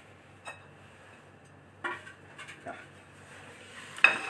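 Steel bowls and utensils knocking and clinking on a kitchen counter: a few light, separate clinks, then a sudden loud clatter of several knocks near the end.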